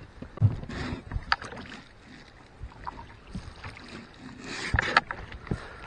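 Scattered knocks, clicks and rustling of handling in an inflatable boat: fishing gear and a landing net being moved about on the rubber hull and floorboard. There is a louder cluster of knocks near the end.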